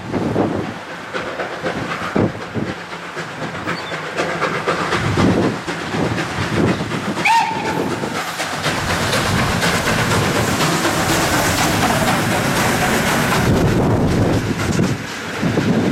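PKP Ol49 steam locomotive working hard as it pulls away with a passenger train, its exhaust chuffing in heavy beats. A short whistle note sounds about seven seconds in. It then passes close by in a dense wash of exhaust, steam and running-gear noise.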